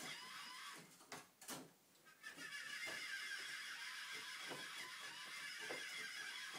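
A small pet animal making a continuous buzzing, chattering call. The call breaks off for about a second and a half near the start, with a few soft knocks in the gap.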